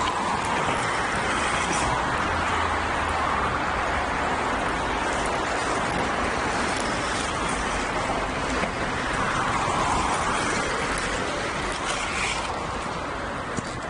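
Steady road traffic noise from the elevated roads overhead, swelling twice as vehicles pass.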